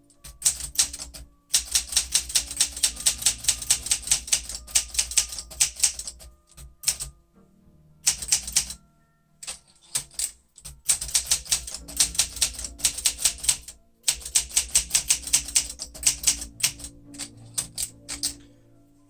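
Olympia SM9 manual portable typewriter being typed on briskly: runs of quick, crisp keystrokes, several a second, with a few short pauses between runs.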